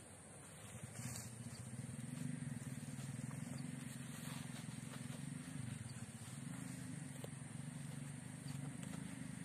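A low engine drone, steady with slight wavering in pitch, starts about a second in and runs on.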